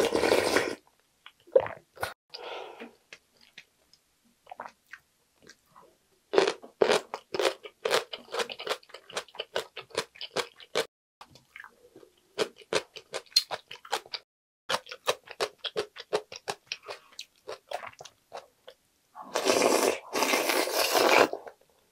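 Close-miked eating sounds: a short slurp of soup off a wooden ladle at the start, then many small crisp crunches of chewing cubed radish kimchi (kkakdugi). Near the end comes a long slurp of noodles.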